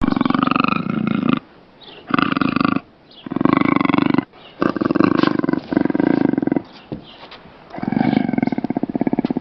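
A large wild animal roaring in a series of about six loud, pitched calls, each up to about a second and a half long, with short pauses between them.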